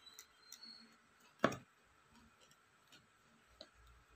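Cardboard box handled with gloved hands: faint scattered clicks and one sharp knock about a second and a half in.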